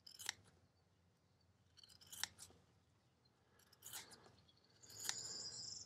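Faint scissors snipping the edge of a round neoprene patch: a handful of short, separate cuts, then a longer drawn cut near the end.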